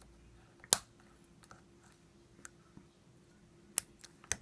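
Sharp clicks of a lock pick working the pin stack of a Master Lock bike lock during single-pin picking: a loud click about a second in, fainter ticks, then two more clicks near the end. The lock keeps giving clicks without opening.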